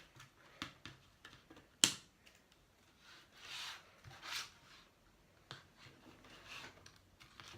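A doll's toy box packaging being worked open by hand: scattered clicks and taps, a sharp snap about two seconds in, and rustling in the middle and again near the end.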